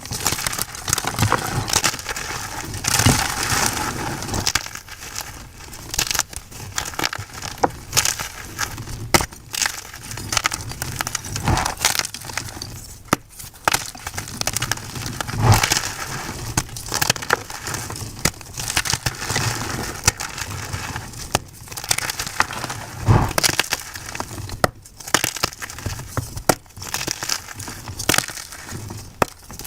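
Blocks of white gym chalk being crushed and crumbled by hand, a continuous run of dry, crisp crunches and crackles with sharper cracks every second or so.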